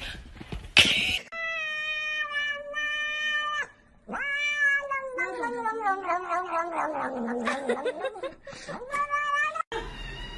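A short loud bump near the start, then a domestic cat yowling in long drawn-out cries. The first is held steady for a couple of seconds; after a short break come rising-and-falling and wavering cries that stop abruptly near the end.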